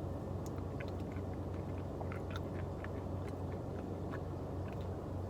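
A person chewing a mouthful of melted ice cream, with small wet mouth clicks, over the steady low hum of a car's air conditioning.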